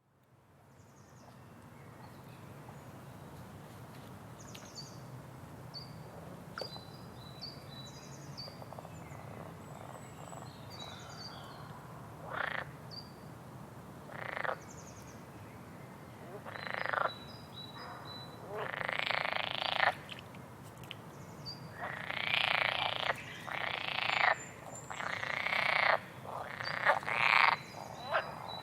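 Frogs croaking. After the sound fades in, loud croaking calls of about half a second to a second and a half each begin about twelve seconds in and come more and more often toward the end, while small birds chirp faintly in short high notes throughout.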